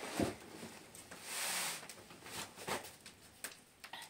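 A cloth swishing as it is drawn across a cloth sheet on the floor, with a few soft knocks from a metal plate and basin being handled.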